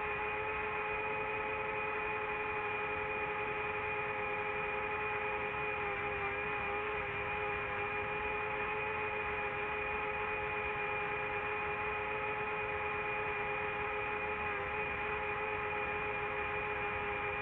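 DJI FPV drone's motors and propellers whining steadily in flight, several held tones over a hiss, dipping slightly in pitch twice.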